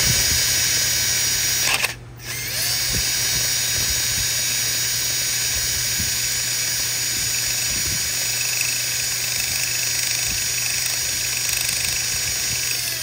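Handheld power drill running steadily as a time-sert drill bit cuts the stripped threads out of a bolt hole in a Subaru EJ25 aluminium engine block. The drill stops briefly about two seconds in, then runs on until it slows at the very end as the bit breaks through.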